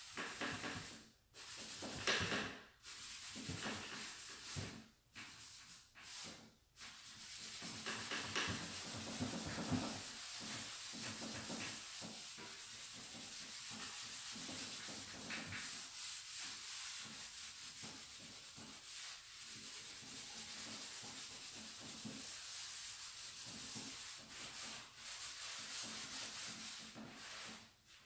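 Dry rubbing of a hand-held pad over the chalk-painted side panel of a nightstand, working black furniture wax into the paint. It comes in short strokes with brief pauses at first, then settles into steady rubbing from about ten seconds in.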